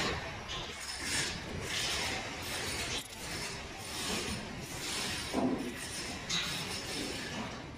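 Masking tape being torn and pressed flat by hand onto a concrete column: a string of short ripping and rubbing sounds.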